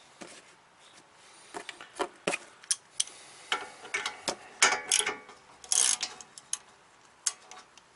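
Metal hand tools clinking and a socket clacking onto and turning the hub nut of a car's rear axle stub by hand: a run of irregular sharp clicks and clacks starting about a second and a half in, with a few longer rattles in the middle.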